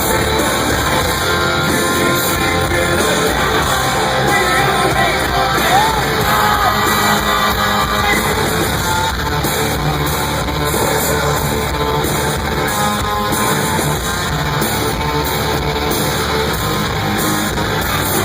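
Rock band playing live at concert volume, electric guitar and a singer's voice over a dense full-band mix, heard from the audience in a large hall.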